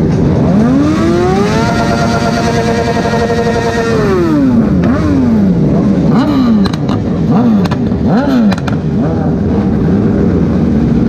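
Motorcycle engines: over a steady, lower-running engine, a motorcycle revs up, holds high revs for about two seconds, drops back, then blips the throttle several times in quick succession, with a few sharp cracks among the blips.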